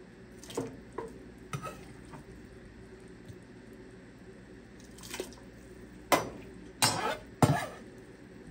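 Kitchen utensils knocking and scraping against cookware: a few light clinks and scrapes, then three louder, sharper knocks between about six and seven and a half seconds in.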